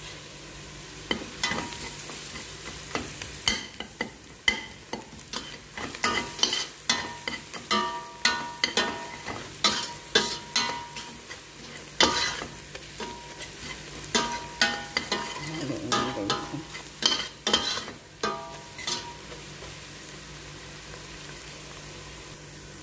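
A utensil scraping and knocking around a stainless steel pot while chopped onions, garlic and spices fry and sizzle in oil; some knocks make the pot ring briefly. The stirring stops a few seconds before the end, leaving only the steady sizzle.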